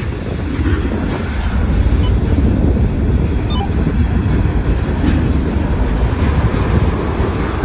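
Covered hopper cars of a CSX mixed freight train rolling past close by: a loud, steady low rumble of steel wheels on the rails.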